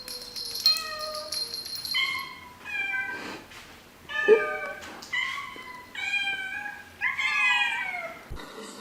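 Kitten meowing repeatedly: about seven short, high-pitched meows in quick succession, each bending down in pitch at the end.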